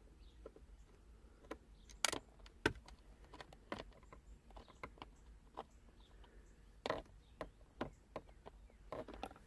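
Scattered light clicks and knocks of small hard parts being handled while a car's gear shift knob is worked apart by hand. The sharpest knocks come about two seconds in, again shortly after, and near seven seconds.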